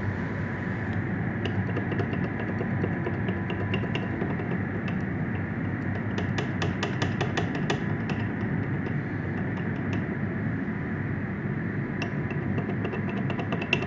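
Nitro 1200-watt electric kids' quad running with a steady hum and whine from its drive. Over it, a rapid clicking rattle comes from the wheel hub, heaviest about six to eight seconds in, the sign of play in the hub.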